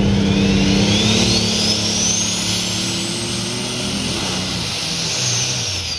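Pulling tractor's turbocharged diesel engine running flat out under load, with a high turbo whistle that climbs steadily in pitch. About five seconds in the whistle peaks and starts falling as the engine is throttled back.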